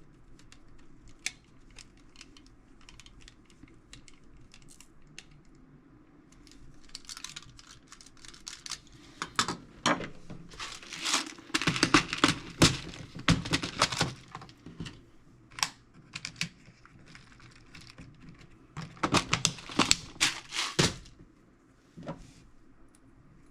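Hand work on the tool box: light clicks of small screws and parts being handled, then louder scraping and rustling bursts in two spells as screws are fitted into the box.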